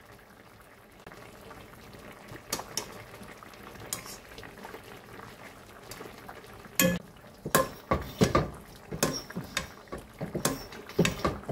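Soy-based braising sauce bubbling around a whole snapper in a pan as it boils down, with a spoon clinking and scraping against the pan as sauce is ladled over the fish. The knocks are few at first, then come louder and more often in the second half.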